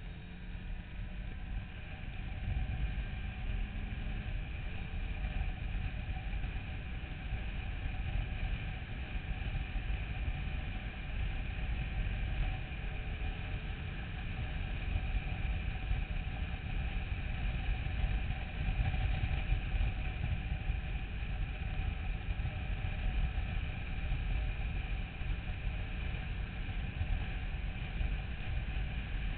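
Motorcycle riding at a steady cruising speed, heard from a tank-mounted camera: heavy wind rumble on the microphone with the engine's steady drone underneath.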